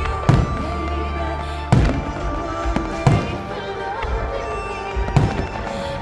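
Aerial fireworks shells bursting with four loud bangs, over the music of a pyromusical display.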